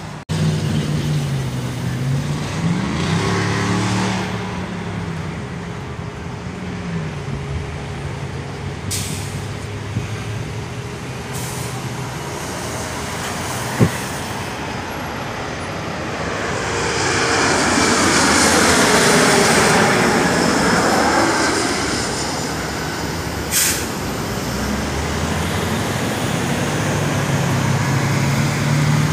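Road traffic at an intersection: truck and car engines idling and pulling away, their pitch rising and falling. Midway a jet aircraft passes overhead, its noise swelling over several seconds with a sweeping whoosh and then fading; this is the loudest sound.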